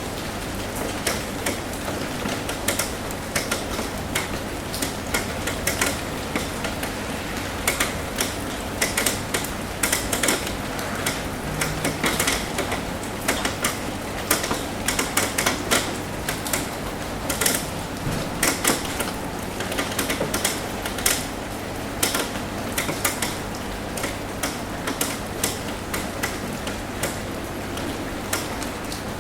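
Rain tapping on a roof: many irregular drips and taps over a steady hiss of rainfall.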